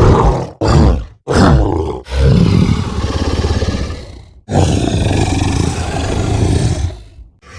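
Made-up monster roar sound effects: three short roars in quick succession, then two long, loud roars, one after the other.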